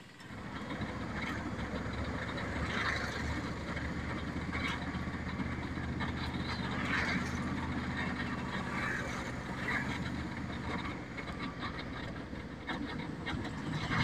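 Road traffic, with a vehicle engine running steadily close by and a car passing close near the end.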